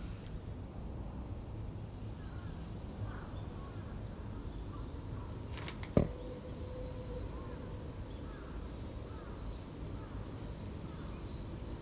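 Outdoor garden ambience: a steady low rumble with faint bird chirps, and one sharp knock about six seconds in followed by a brief ringing tone.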